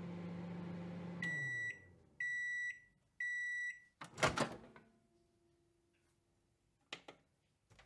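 Microwave oven hum winding down and stopping, followed by three high-pitched end-of-cycle beeps about a second apart, each about half a second long. Then comes a loud clunk of the door opening, and a couple of light clicks near the end.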